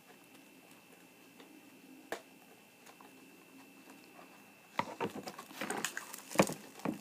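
Handling noises from a toy boat being unboxed: one sharp click about two seconds in, then a run of clicks and rustling from near five seconds, loudest about six and a half seconds in.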